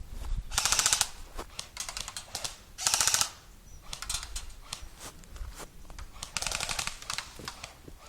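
Airsoft gun firing three short full-auto bursts of rapid, even clicks, with scattered single clicks between them.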